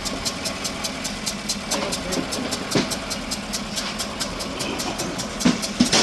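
A pickup truck's newly replaced engine idling with a rapid, even ticking about five times a second, which the owners take for an exhaust leak. A few louder knocks come near the end.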